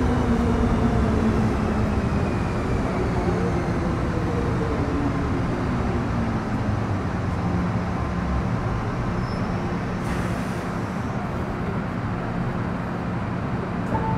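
MTR Metro Cammell M-Train EMU with GEC GTO chopper traction, heard from inside the car while braking into a station. Several whining chopper tones glide slowly downward as the train slows, over a steady rumble of wheels on rail.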